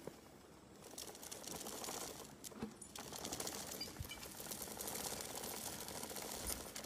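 Faint crunching and rattling as a working elephant walks uphill over loose soil and broken branches, dragging its chain along the ground, with a few sharper clicks.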